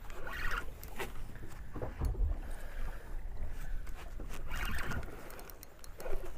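Small fishing boat at sea: water sloshing against the hull with a low rumble and scattered knocks, loudest about two seconds in.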